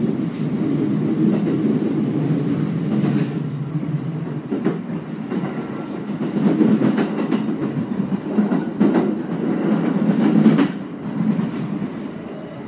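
JR East E217 series electric train running on the rails, heard from the cab at the coupling between two units: a steady rumble of wheels and running gear with several sharp clacks as it goes. It gets quieter after about ten seconds.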